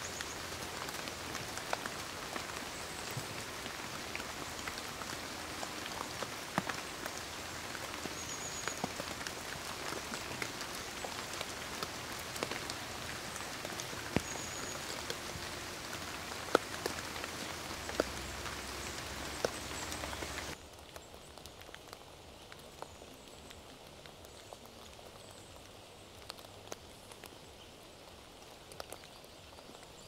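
Rain in a forest: a steady hiss with many scattered drop ticks. About two-thirds of the way through it drops suddenly to a quieter, sparser patter.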